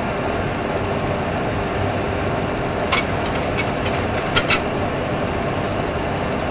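Steady rushing flight-deck noise of a Boeing 737 Classic in flight, with a few sharp clicks: one about three seconds in and a quick pair about four and a half seconds in, as the knobs on the autopilot mode control panel are turned.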